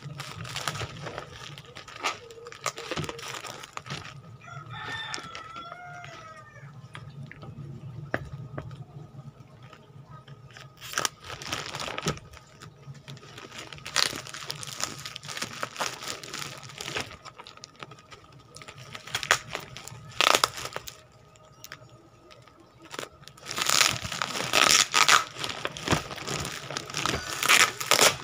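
Plastic packaging and bubble wrap crinkling and rustling in repeated bursts as a parcel is unwrapped by hand, loudest near the end. About five seconds in, a rooster crows once.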